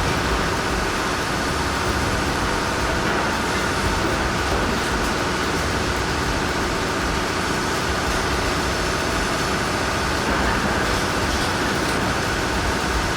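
Heavy machinery running: a steady, unchanging mechanical noise with a faint hum in it.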